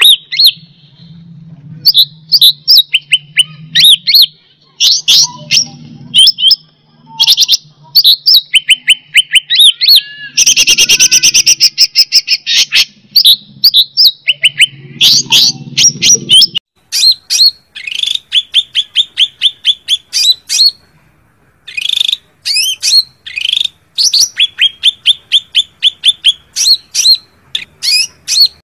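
Blue-winged leafbird (cucak ranting) giving its fighting song, rapid runs of sharp, high chirps and trills, as it challenges a rival. About ten seconds in there is a harsher, denser buzzy stretch.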